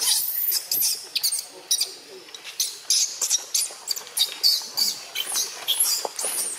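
Young macaque screaming in a rapid string of shrill squeals and screeches, several a second, the distress calls of a juvenile being grabbed by another monkey.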